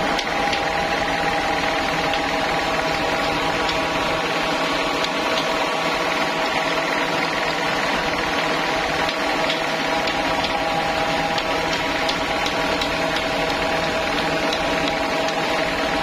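Band sawmill machinery running steadily, a motor hum with a steady whine, not cutting. Faint light taps of a hammer are scattered over it.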